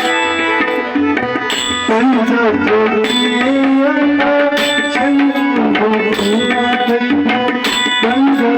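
Tabla playing a bhajan accompaniment: a run of strokes whose bass drum pitch bends up and down between strikes.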